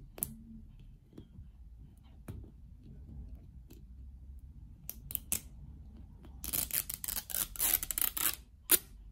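Small plastic zipper on an L.O.L. Surprise ball's plastic wrapper being unzipped. A few scattered clicks come first, then a burst of rapid crackly ticking about six and a half seconds in that lasts under two seconds, and a sharp click near the end.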